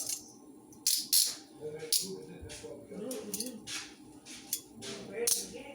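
Metal handcuffs clicking and rattling as they are handled, a dozen or so sharp irregular clicks, over faint background voices or music.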